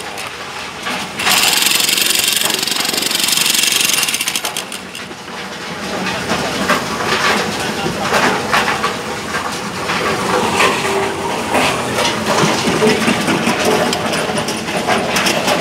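Hand-held electric demolition hammer chiselling into gypsum rock, running hard in one burst from about a second in for about three seconds. After that, a rougher, uneven mix of short knocks and machine noise.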